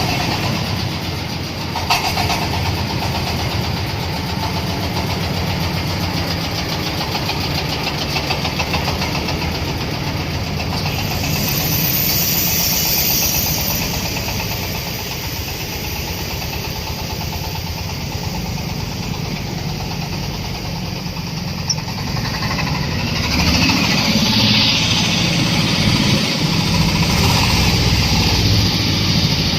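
A 26 HP engine driving a corn sheller, running steadily with a rapid low pulsing. It grows louder about three-quarters of the way through.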